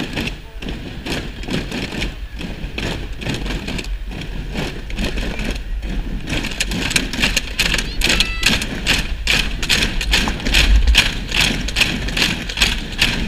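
A large group of children drumming and banging recycled objects such as plastic bottles and boxes in a rapid clatter, imitating the firecracker barrage of a mascletà. The clatter grows denser and louder about halfway through.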